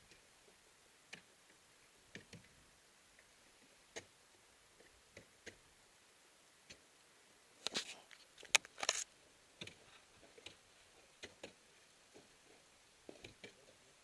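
Sparse sharp ticks of ice tools and crampons striking water ice, with a louder flurry of clattering knocks about eight seconds in.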